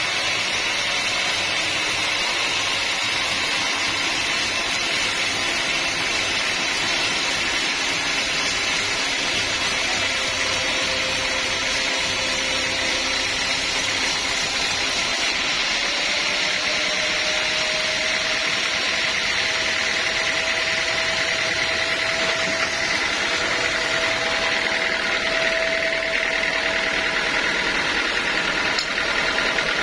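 Sawmill running steadily, a constant hiss of machinery with a faint hum whose pitch rises slightly about halfway through.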